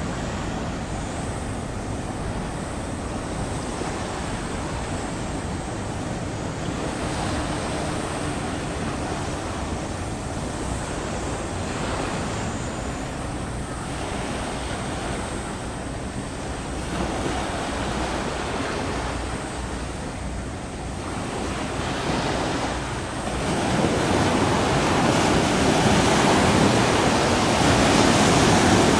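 Water washing and wind on the microphone, a steady noisy rush that grows clearly louder for the last five seconds or so.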